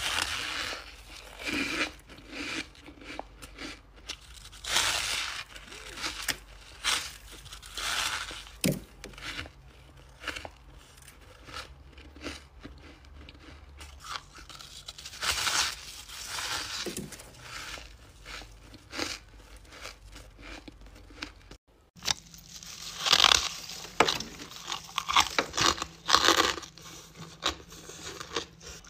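Close-miked biting and chewing of crunchy freezer-frost chunks: irregular crisp crunches about once a second. After a brief break about two-thirds of the way through, the crunches come faster and louder.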